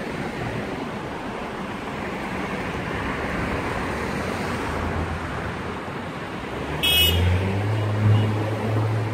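Street traffic going by. About seven seconds in, a heavier vehicle's engine hum comes up low and steady, with a brief high-pitched squeal as it starts.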